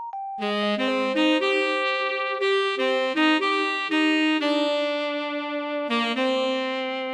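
Background music: a saxophone-like melody over held chords, with notes changing about every half-second.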